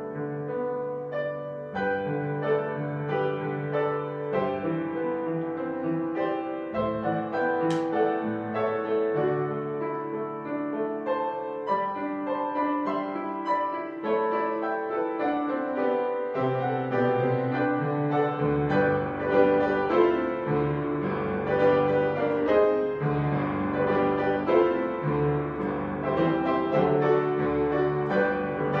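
Piano playing a postlude at the close of a church service, sustained notes overlapping, growing slightly louder in the second half.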